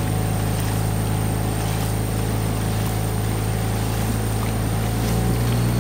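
Motorboat engine running with a steady low drone.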